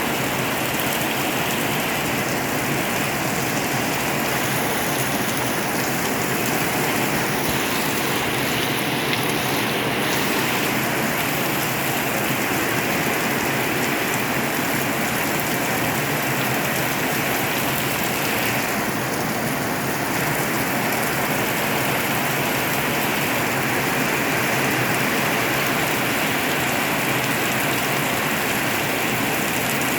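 Heavy rain falling steadily, an even hiss of dense drops.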